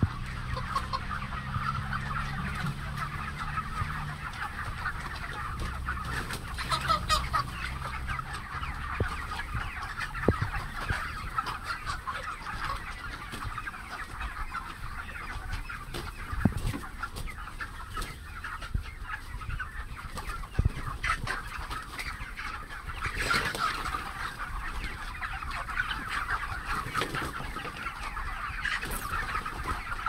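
A large flock of farmed chickens clucking continuously in a dense, overlapping chatter. A low steady hum sounds under it for the first few seconds, and a few sharp knocks come through now and then.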